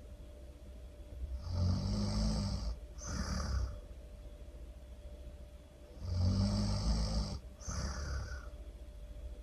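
A person snoring, two full breaths about four and a half seconds apart. Each is a longer low snore followed by a shorter, higher, breathy sound.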